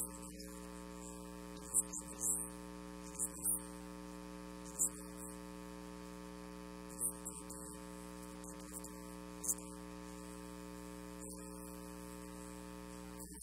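Steady electrical mains hum, with a few brief faint high hisses scattered through it.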